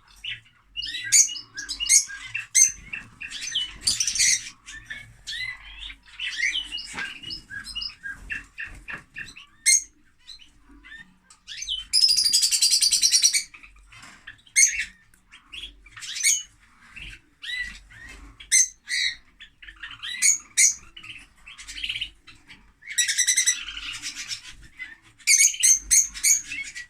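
Lovebirds calling: rapid high chirps and squawks, with a long harsh buzzing call near the middle and another toward the end.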